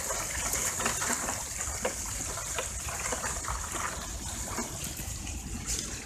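Water running down a sluice box and splashing through a wire-mesh strainer of creek stones held in the flow, with scattered small clicks. The stones are being rinsed clean so that fine material, gold dust included, washes off them into the sluice mat.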